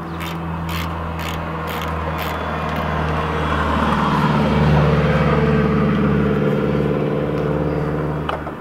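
A ratchet wrench clicks in quick, even strokes as a 10 mm battery terminal nut is loosened. Under it runs a steady engine hum that grows louder from about four seconds in and cuts off just before the end.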